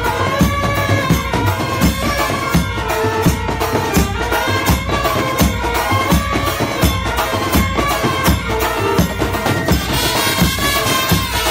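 Background music with a steady drum beat under a melody.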